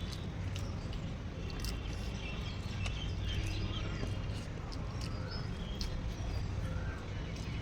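People eating: scattered small clicks and smacks of chewing, with faint bird chirps over a steady low background rumble.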